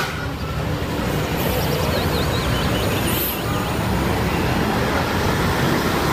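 Steady low engine rumble under a hiss of road-like noise from a running motor vehicle. Faint high squeaks come through from about a second and a half to three and a half seconds in.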